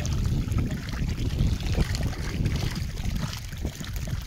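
Wind buffeting the microphone as a steady, uneven low rumble, with faint splashing of fish crowded in shallow floodwater.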